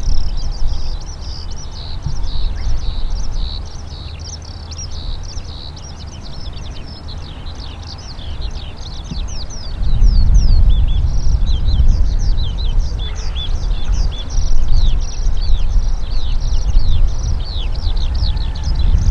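Birds singing, a steady stream of quick high chirps, over a low uneven rumble that gets louder about halfway through.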